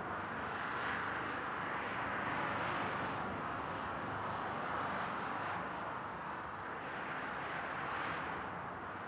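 Road traffic on a dual carriageway: a steady rush of tyres and engines that swells now and then as vehicles go past.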